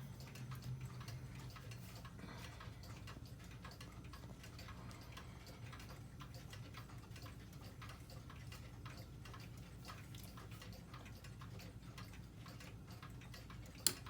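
Girod dual-chime wall clock ticking steadily, with one sharp, louder click near the end.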